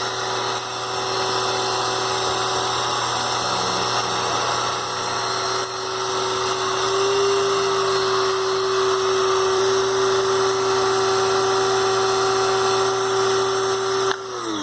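Small 1800 PSI electric pressure washer running, its motor and pump giving a steady whine over the hiss of the spray, then spinning down with a falling pitch near the end as the trigger is let go.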